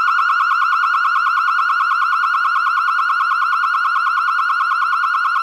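Vixen Horns VXS7920 12V electronic siren sounding one of its warning tones through its 100-watt speaker: a loud, high electronic tone that warbles rapidly around a steady pitch without rising or falling.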